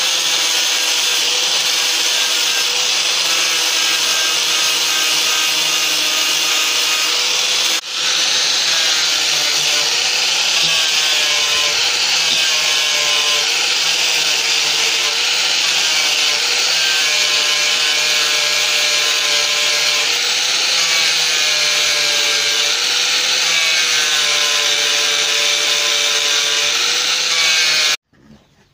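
Electric angle grinder running with an abrasive disc, sanding rust off a solid steel bar. It gives a steady, loud whine whose pitch wavers slightly, dips briefly about eight seconds in, and stops abruptly near the end.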